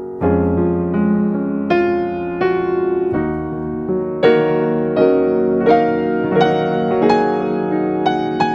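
Background music: a piano or electric piano melody of single notes, each struck note ringing and fading, with a new note about every half second.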